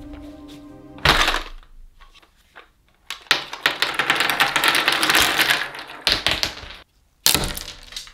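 Whole walnuts dropping onto a wooden workbench, clattering and knocking in a long rapid run of hard clicks, with a sharp knock about a second in and a few more loud knocks near the end.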